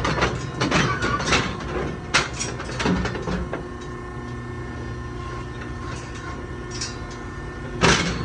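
Knocks and rattles of a bucking chute's bars as a bull shifts inside it. There are several sharp knocks in the first three seconds and a louder one near the end, over a steady background hum.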